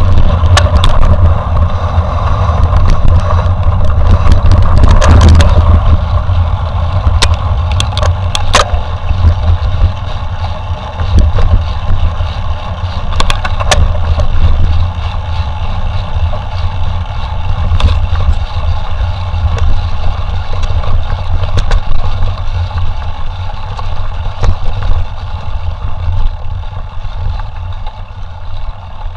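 Loud, steady rumble of wind buffeting the microphone of a camera on a moving mountain bike, with scattered rattles and knocks as the bike rolls over rough forest trail. It eases somewhat after about ten seconds and again near the end.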